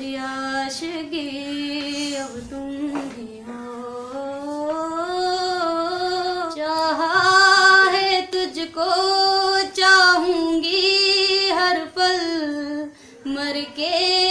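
A woman singing a Hindi film song unaccompanied, drawing out long held notes with no words heard that slide slowly up and down. She takes a short break near the end.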